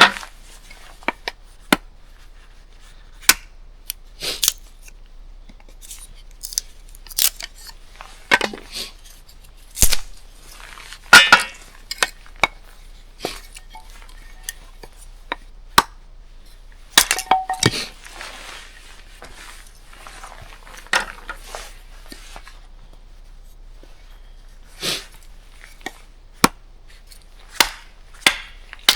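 Irregular knocks and clinks of camp gear being handled, with a short metallic ringing a little past a third of the way in and again past halfway.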